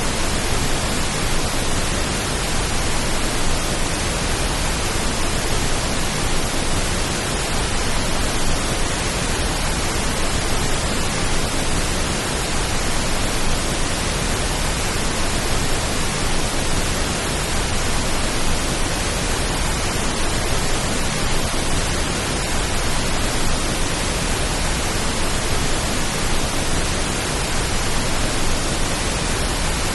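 Steady pink noise: an even hiss across the whole range that never changes and has no separate drops or strikes, offered as a rain-like calming sound.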